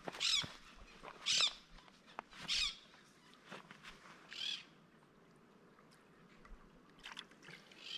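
A bird calling over and over: short, high, arched calls about a second apart, four of them, then a pause and a couple of fainter calls near the end.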